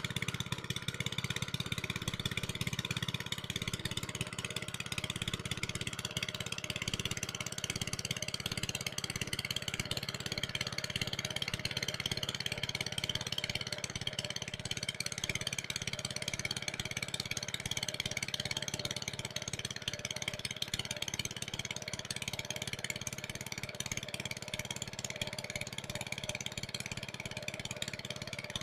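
Small diesel engine running steadily as it drives a water pump, drawing water out of a pond through a long pipe; an even, fast chugging with no change in speed.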